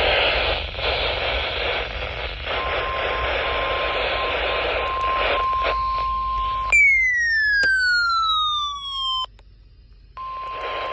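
Weather radio alert audio. Loud radio static with a steady warning alarm tone fading in through it. About seven seconds in, a falling electronic tone with overtones slides down for two and a half seconds and cuts off. After a short gap the steady alarm tone comes back through the static near the end.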